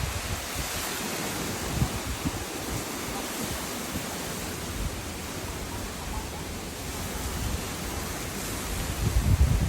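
Strong gusting wind as a hurricane comes ashore: a steady rushing noise with rumbling buffets on the microphone, the strongest gust near the end.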